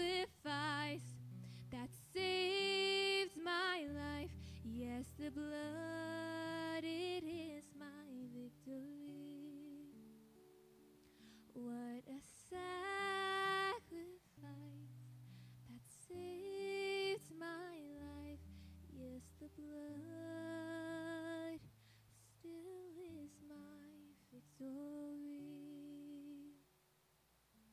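Female voice humming and singing wordless phrases over acoustic guitar accompaniment, in slow held notes. The music stops about a second before the end, leaving near silence.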